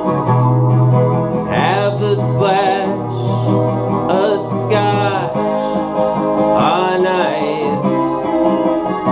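Solo acoustic guitar strummed steadily under a man singing, in three sung phrases with held, wavering notes.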